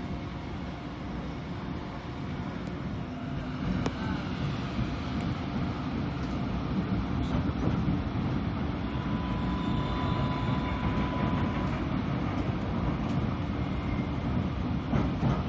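Seoul Metro Line 1 electric train running on the adjacent track, its low rolling rumble slowly growing louder. Faint steady whining tones of its GTO-VVVF traction inverters sit above the rumble, clearest as one held tone for about three seconds near the middle.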